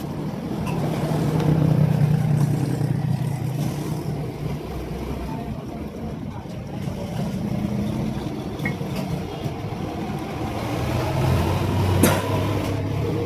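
Motor vehicle engine running, its pitch rising and falling and loudest about two seconds in, with a sharp click near the end.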